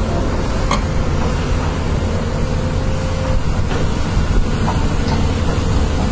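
Two Doosan crawler excavators running steadily, their diesel engines rumbling as the booms swing and lift. A faint steady whine runs underneath, and a single sharp click comes just under a second in.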